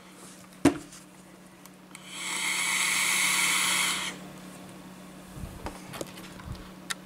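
A short click, then a hiss of about two seconds as air is drawn hard through an e-cigarette's atomizer on one long pull, followed by soft low breathy puffs as the vapour cloud is blown out.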